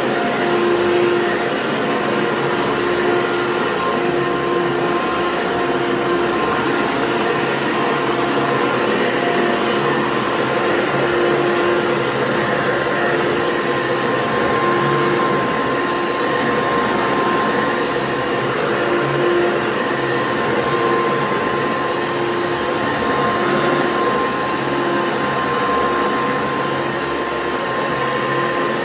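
Vacuum cleaner running steadily as it vacuums a rug: a continuous rushing motor noise with a steady whine.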